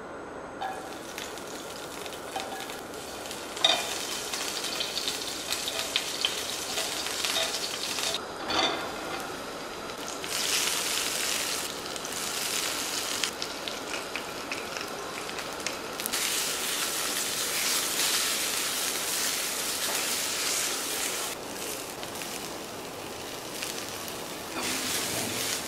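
Food sizzling as it fries in a hot pan, the sizzle swelling and easing in waves, with a sharp clink about four seconds in and another about eight and a half seconds in.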